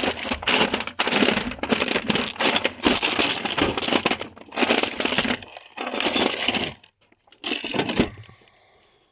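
Small metal pipe fittings clattering and clinking as a hand rummages through them, in dense bursts that stop about seven seconds in, with one last short burst just before eight.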